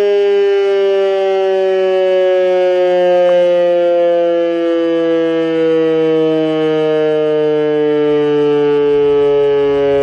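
E.D. Bullard 3H27 "Weltex" outdoor warning siren sounding loudly, one rich tone with many overtones that slowly falls in pitch.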